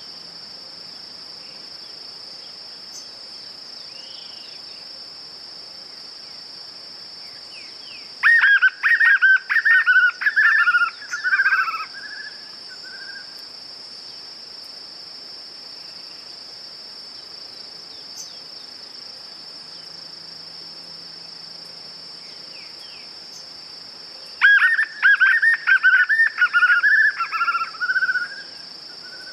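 White-eared puffbird (João-bobo) singing two bouts, each a rapid run of repeated notes lasting about four seconds, one about eight seconds in and one near the end. A steady high insect drone runs underneath.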